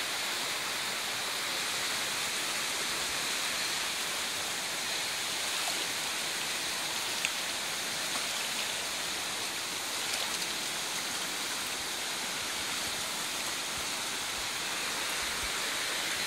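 Shallow, fast stream rushing steadily over rocks, with one short click about seven seconds in.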